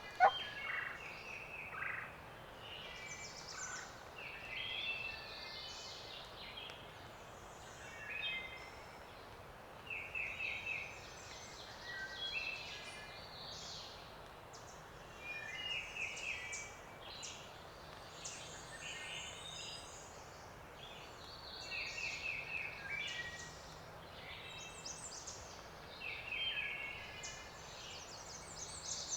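A wild turkey gobble ends right at the start, then songbirds sing a dawn chorus of short, repeated phrases every few seconds over a faint steady background.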